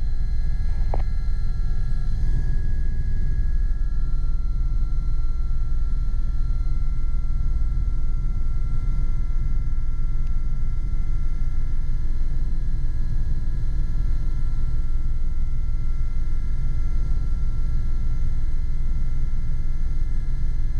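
Cabin noise of a Gazelle SA341C turbine helicopter in steady cruise: a constant low rumble with a steady high whine over it. There is a short click about a second in.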